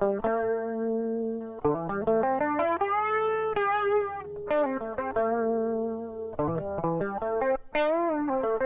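Electric guitar played through a Tom'sline chorus pedal: a lead line of single held notes with string bends and vibrato.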